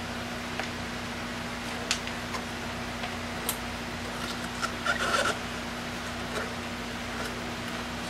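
Plastic zip ties being threaded and handled: scattered light clicks and rustles, with a short burst of rapid clicking about five seconds in as a tie is worked through, over a steady background hum.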